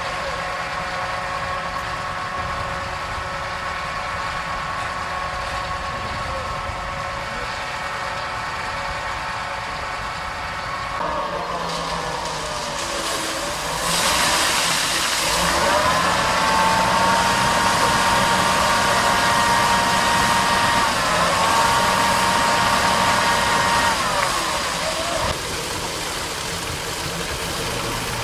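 Concrete mixer truck's diesel engine running steadily, then revving up about eleven seconds in. It holds at a higher, louder speed for about ten seconds to turn the drum and discharge concrete down the chute, then drops back to idle near the end.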